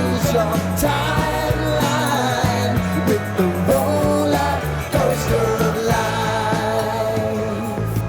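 Background rock music with a steady beat: electric guitar, bass and drums, with a sung line.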